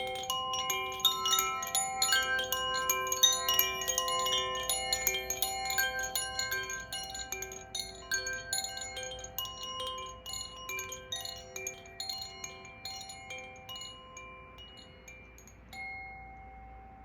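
Koshi chime ringing: small tuned metal rods inside a bamboo body, struck by a swinging clapper, give overlapping clear bell-like notes. The strikes come thick at first, then grow sparser and fade, with one last note near the end.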